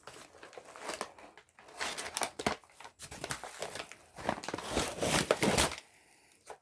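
Packaging crinkling and rustling as it is handled and pulled off, in irregular bursts that grow louder past the middle and stop near the end.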